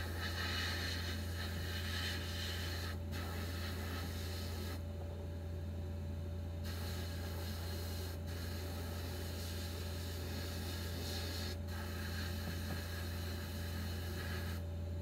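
Abrasive blasting in a blast cabinet, stripping paint from a steel toy truck part: the blast gun gives a steady hiss that stops and restarts several times as the trigger is let go, once for nearly two seconds, over a constant low hum.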